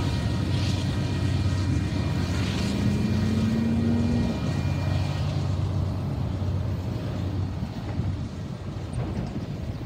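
Distant Union Pacific diesel freight locomotives running with a low, steady drone that slowly fades as the train moves away. A short rising hum comes in about three seconds in.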